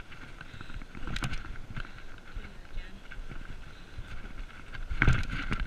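BMX bike rolling over a dirt track: tyre rumble and wind on the camera, with a rattling jolt about a second in and a louder thump and clatter near the end as the bike hits bumps in the dirt.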